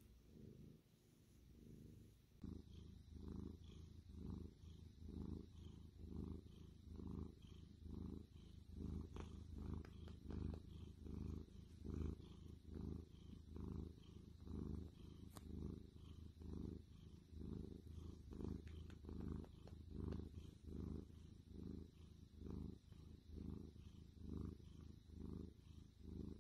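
Domestic tortoiseshell cat purring close up, a steady low buzz that swells and fades with each breath in and out, starting a couple of seconds in.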